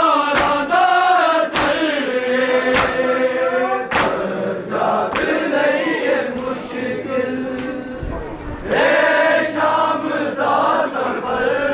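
Crowd of men chanting a nauha (mourning lament) in unison. Sharp slaps fall about every second and a quarter in time with it, the beat of matam (chest-beating by the mourners).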